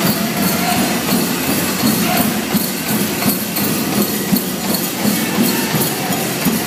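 Pow wow drum beating a regular beat with the drum group's singing, amid the jingling of the dancers' bells and jingle-dress cones.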